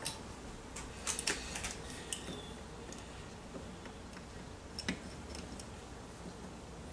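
Small crescent wrench clicking and tapping against an ATV carburetor's fitting as it is turned: scattered light metal clicks, a quick cluster about a second in and another pair near five seconds.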